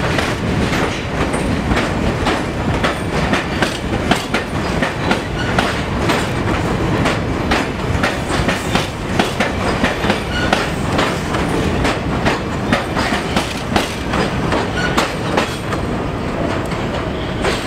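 Pullman Standard R46 subway train running past on an elevated track: a steady loud rumble with a continuous run of wheel clicks over rail joints.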